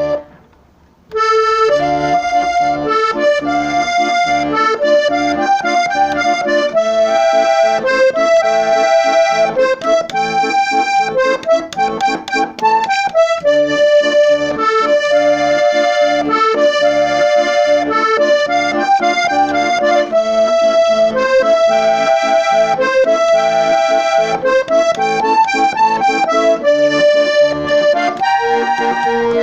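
Diatonic button accordion playing a waltz in musette style, a melody over a steady bass-and-chord accompaniment. A brief note sounds at the very start, then about a second of quiet before the tune begins.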